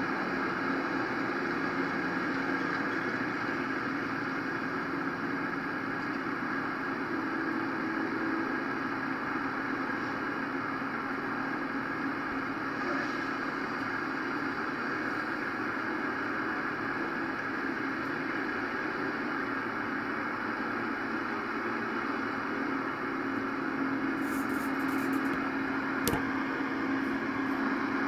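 Steady mechanical hum and hiss with a few held tones, and a single sharp click about two seconds before the end.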